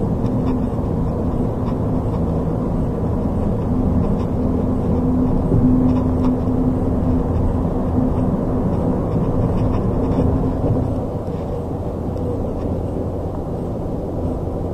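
Cabin noise of a moving car: a steady low rumble of road and engine noise with a steady hum that fades about eleven seconds in, after which it runs a little quieter.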